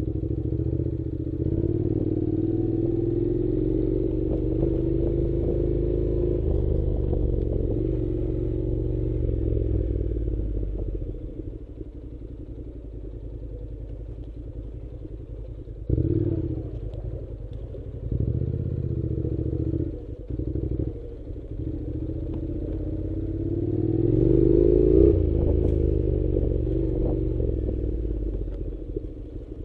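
An engine running, its pitch rising and falling, with a louder rev near the end.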